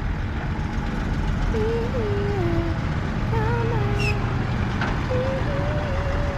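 Bulldozer's diesel engine running steadily under load, with a faint voice or tune over the rumble.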